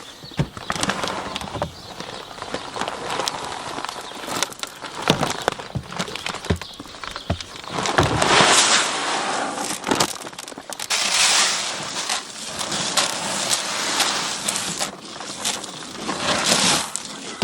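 Seed corn rattling and pouring into a corn planter's seed boxes in several surges, among scattered clicks and knocks.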